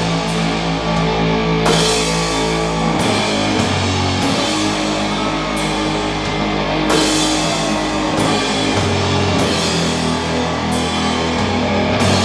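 Doom metal band playing live: heavily distorted guitars and bass hold long, low chords that change every second or two, over drums with frequent crash cymbal hits.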